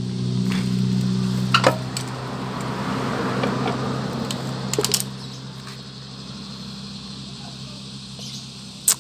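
Sharp metallic clicks and taps of small kickstarter parts (washer, circlip, shaft) being handled and fitted on a scooter's CVT cover: a pair about one and a half seconds in, a cluster around five seconds, and a loud one near the end. Under them a steady low hum that fades away.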